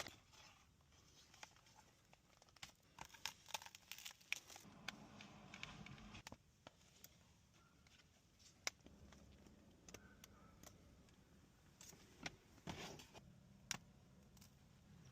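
Faint, scattered clicks and rustling of small tools and parts being handled during an iPad screen repair.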